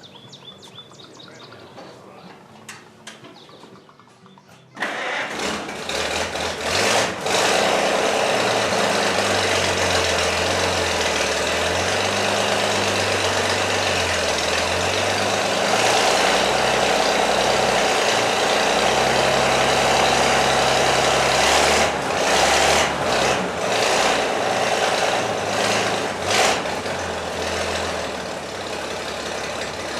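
Rat rod truck engine starting about five seconds in, then running at idle with the engine speed rising and falling. This is the first start after a new clutch, pilot bearing, pressure plate and throw-out bearing were fitted.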